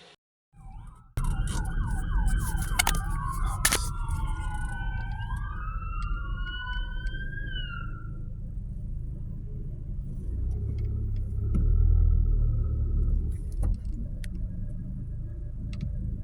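Emergency vehicle sirens start about a second in. A fast yelp overlaps with at least one slower rising-and-falling wail, and they stop about halfway through. A low vehicle rumble runs under them and swells near the end, as a vehicle passes close.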